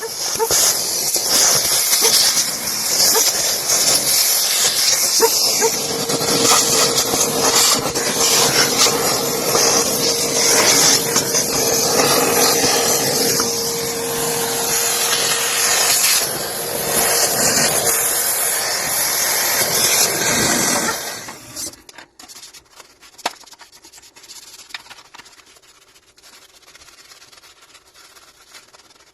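Saeco Syntia espresso machine's steam wand hissing steadily and loudly, then shutting off suddenly about three-quarters of the way through. Faint rubbing and handling sounds follow.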